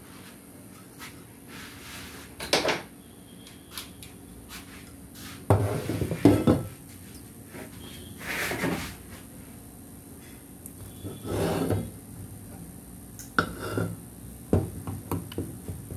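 A hacksaw and pliers being set down and moved about on a workbench make a series of irregular knocks and clatters with a few short scrapes.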